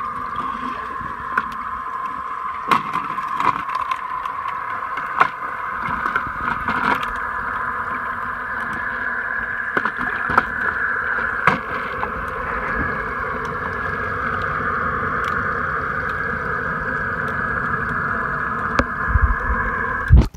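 HammerHead electric pool vacuum's motor running steadily, heard underwater as a constant whine, with scattered clicks and a few knocks near the end.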